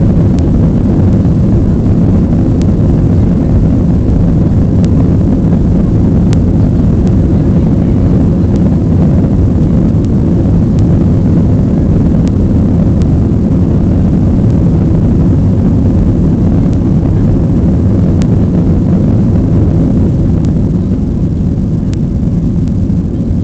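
Aircraft during takeoff: a loud, steady low rumble of engines and airflow, with a few faint ticks or rattles. It eases off slightly near the end.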